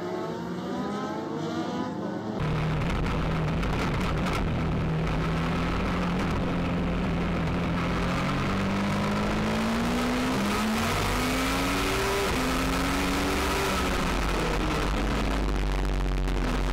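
Legend race car's Yamaha motorcycle engine at racing speed, its pitch climbing at first, then a sudden jump to a loud, close engine sound a little over two seconds in. From there its pitch dips and rises again and again, lap after lap through the corners.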